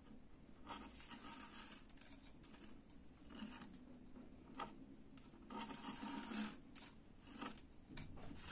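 Waxed macramé thread being pulled and tightened into knots by hand: faint, short scratchy rustles of cord sliding and fingers brushing the board, with one sharper tick about halfway through.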